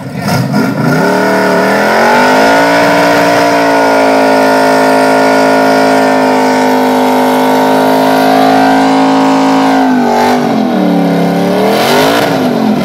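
Car engine revving up and held at high revs for about eight seconds during a smoky tire-spinning burnout. It then drops, blips up once more, and falls away near the end.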